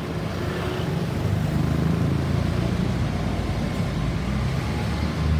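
Road traffic with a vehicle engine's low, steady rumble; no siren sounds.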